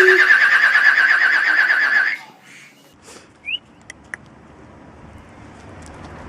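A parrot imitating a horse's whinny: a loud, shaky, trilling neigh that ends about two seconds in. A short high chirp and a couple of faint clicks follow.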